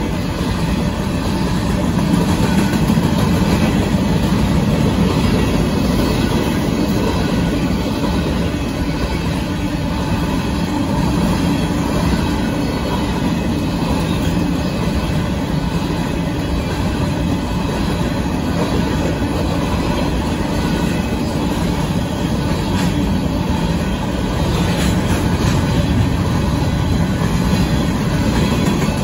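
Covered hopper cars of a Union Pacific grain train rolling past close by: a steady, continuous noise of steel wheels running on rail.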